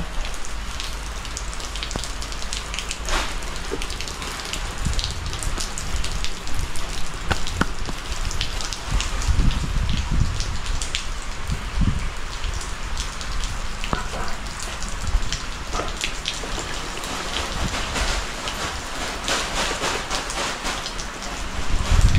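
Steady monsoon rain falling, with many individual drops tapping close by and no thunder. A few low thumps stand out, the loudest near the end.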